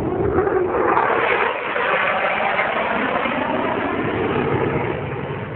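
Fighter jet flying past, really loud: a steady rushing jet-engine noise, its lower tone dropping in pitch over the first second or so as the jet goes by.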